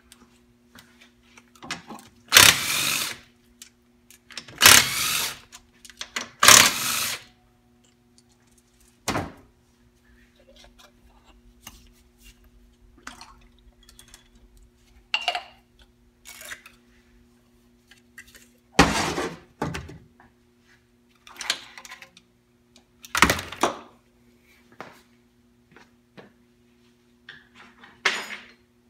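Hand work on a 4L80E transmission during teardown: several loud noisy bursts, each lasting up to about a second, and shorter knocks, over a steady low hum.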